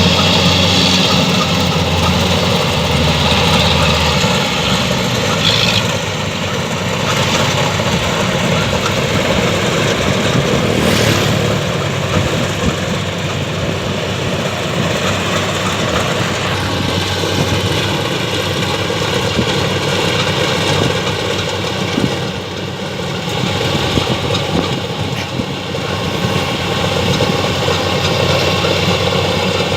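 Rice combine harvester running steadily under load, its engine droning continuously, with a low hum dropping away about four seconds in.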